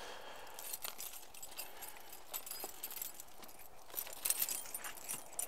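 Rummaging through gear in a car trunk: cords and tools being shifted around, with scattered small clicks, clinks and rattles, busiest about four seconds in.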